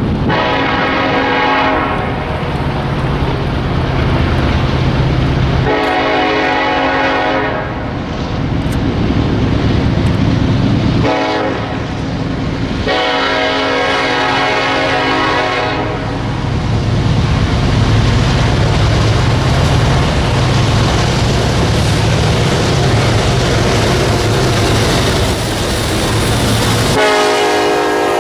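Norfolk Southern SD70ACe locomotive horn sounding as the freight approaches: two long blasts of about two seconds, a longer one of about three seconds, and a fourth starting near the end. Between the blasts the diesel locomotives' engines rumble louder and louder as the train closes in.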